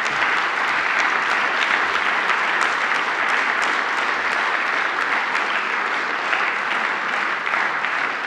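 A seated audience applauding, many hands clapping at a steady level.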